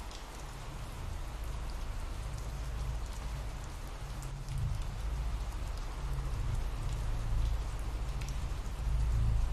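Ambient recording of steady rain falling, an even hiss of drops with a low rumble underneath.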